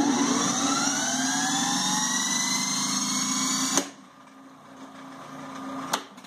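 1903 Century 2 hp single-phase induction motor starting up: a loud hum with a whine that rises in pitch as it comes up to speed. About four seconds in, a click and it goes much quieter, typical of the centrifugal starting switch cutting out the start winding. Another click comes near the end.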